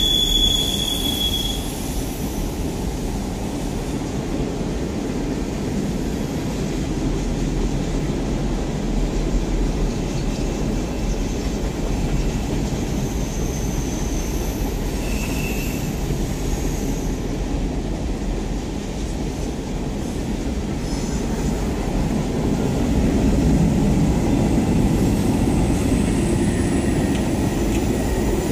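Freight cars of a mixed freight train rolling past: a steady rumble of steel wheels on rail. A high wheel squeal fades out about a second in, and a few brief faint squeals come near the middle.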